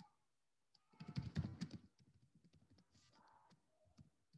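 Faint computer keyboard typing, a quick run of light key clicks, with a brief louder low sound lasting just under a second about a second in.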